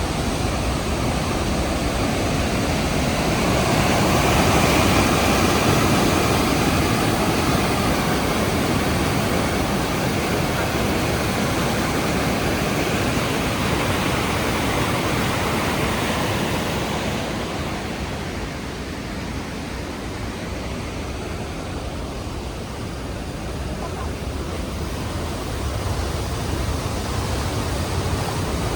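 Rhine Falls waterfall: a steady rush of falling water, swelling about five seconds in. A little past halfway it turns duller and quieter, then rises again near the end.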